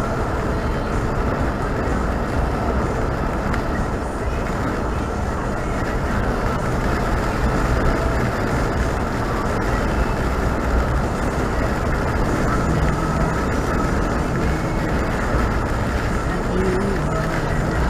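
Steady road and engine noise of a car driving on the highway, an even low rumble with a faint drone.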